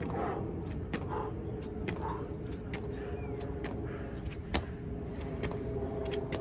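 Feet landing again and again on an exercise mat during jumping lunges: a sharp thud about every half second to second, the loudest a little past the middle. A steady hum runs underneath.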